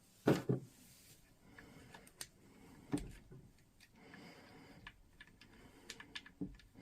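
Tool parts being handled on a workbench during a repair: two loud knocks just after the start, another about three seconds in, one more near the end, and light clicks between them.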